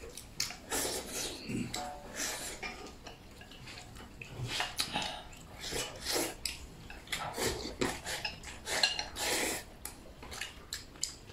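Noodles slurped and eaten from a bowl held at the mouth, in many short slurps, with chopsticks clicking against the ceramic bowl.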